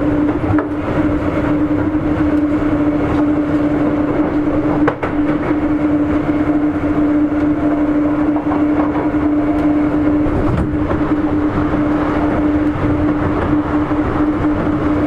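Sotetsu 8000 series electric train running at a steady speed: continuous rumble of wheels on the track, with a steady whine held at one pitch throughout and a single sharp click about five seconds in.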